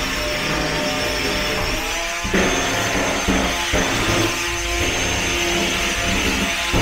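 Antweight drum-spinner robot's weapon whining at speed, with a steady high note and lower motor tones that shift up and down. A few hard knocks from the robots colliding.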